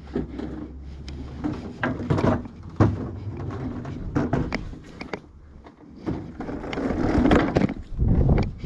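Push lawn mower being moved and set down on the ground: irregular clunks, knocks and scraping rattles of the mower's body and handle.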